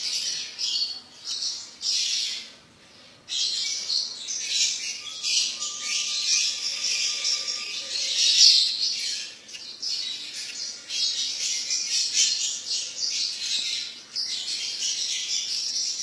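Many small caged birds, most likely lovebirds, chirping and chattering with shrill overlapping calls. The chatter dips briefly about two and a half seconds in, then resumes.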